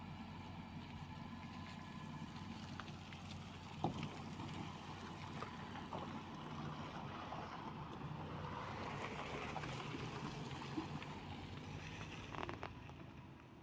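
Heavy construction machinery's diesel engine running steadily, with a few short knocks.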